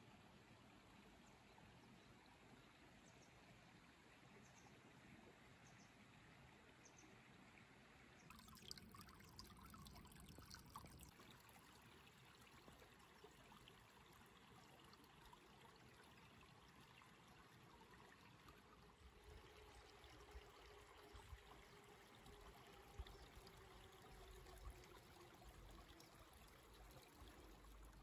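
A faint, steady babbling of a small country stream, with low rumbles in the last several seconds.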